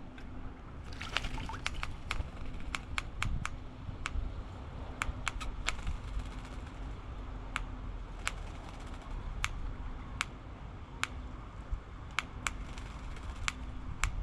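Wattlebirds at a bird bath: a run of sharp, irregular clicks and taps, up to about two a second, with a short noisy flurry like splashing or wing flutter about a second in. A faint low hum comes and goes underneath.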